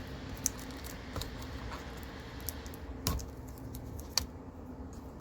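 Scattered light clicks and taps from hands and a small tool working on the internals of an opened laptop, the sharpest about three seconds in and again a second later.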